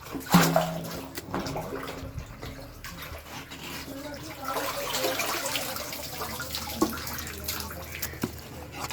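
Sewer water splashing and gurgling, swelling a few seconds in, with a sharp knock near the start and scattered clanks.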